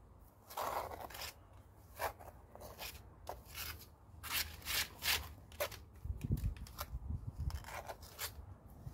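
Steel pointing trowel scraping and pressing lime mortar into brick joints in short, irregular strokes, several a second, with a few low thumps about two-thirds of the way through.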